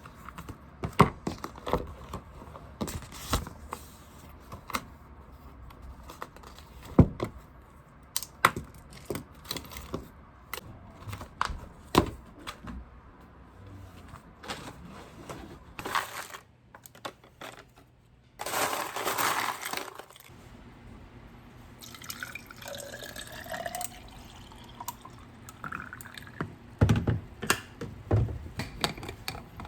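Scattered light clicks and knocks of things being handled, with drips of water, and a brief rush of water for about a second and a half around eighteen seconds in.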